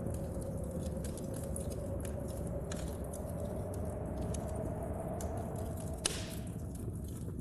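Wood fire crackling in a stove, with scattered sharp pops and one louder crack about six seconds in, over a steady low rumble of storm wind and rain.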